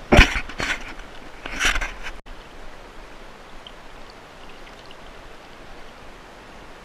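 Water splashing as a big black drum thrashes at the side of a kayak while held by the mouth: three splashes in the first two seconds, the first the loudest. After that, a steady wash of water noise.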